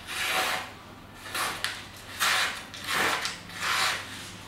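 Kitchen knife blade drawn through a small handheld knife sharpener, about five strokes in a row.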